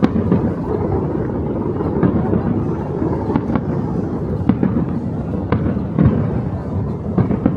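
Fireworks display going off: sharp bangs at about two a second over a continuous low rumble of bursts.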